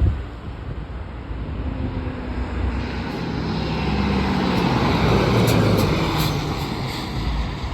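Fire truck driving past, its diesel engine running with a low drone that swells to a peak about five seconds in and then fades away.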